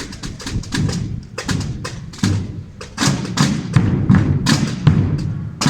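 Semana Santa procession drum corps of snare drums and bass drums (tambores and bombos) playing together: rapid sharp strokes over deep thuds, growing louder about halfway through.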